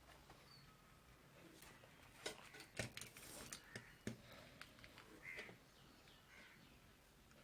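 Near silence with a few faint clicks and taps from hand tools working on an LED bulb's circuit board during soldering, the clearest a little after two seconds in, near three seconds and about four seconds in.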